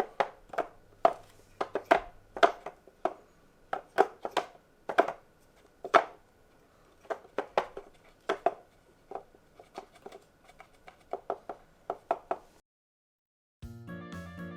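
Irregular sharp plastic knocks and taps, a whack-a-mole style toy being struck over and over, with a faint steady tone beneath. They stop, and after about a second of silence music begins near the end.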